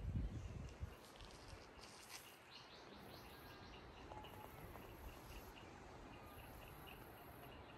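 Faint outdoor ambience of chirping wildlife: a steady run of short, high chirps, about three a second, with a few other bird calls over it. There are a few dull thumps at the very start.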